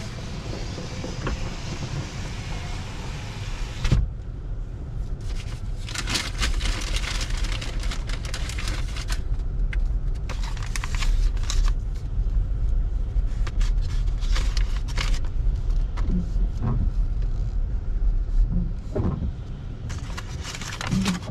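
Car engine running low and steady, heard from inside the cabin, with scattered clicks and knocks.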